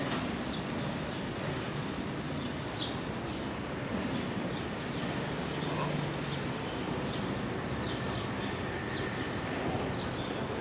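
City outdoor ambience: steady traffic noise, with a few short bird chirps breaking through, the clearest about 3 s and 8 s in.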